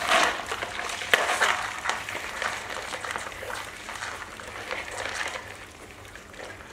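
Live crabs clicking and scraping their legs and claws against a plastic bowl, with a louder clatter at the start and sharp clicks about a second in, then lighter ticking that fades.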